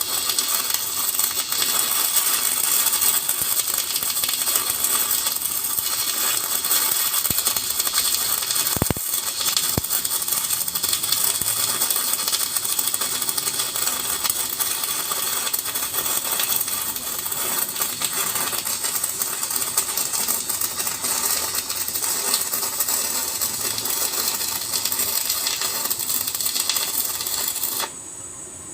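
Stick-welding arc from a coated welding rod, a steady crackling sizzle that breaks off sharply near the end.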